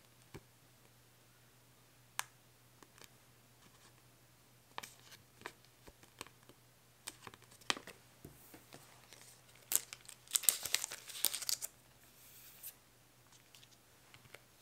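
Sticker sheets and their packaging being handled: scattered light clicks and taps as stickers are peeled and sheets picked up, then about ten seconds in a loud crinkling rustle lasting a second or two.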